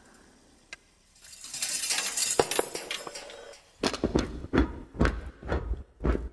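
Metal car parts knocking and scraping on a wooden floor in a chain reaction. A small click comes first, then a rattling, scraping clatter of about two seconds. From about four seconds in there is a run of about six heavy knocks and thuds as a part tumbles along the boards.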